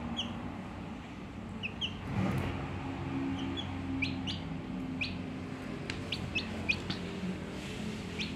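Day-old chick peeping in short, high chirps, scattered at first and coming more often in the second half, over a low steady hum.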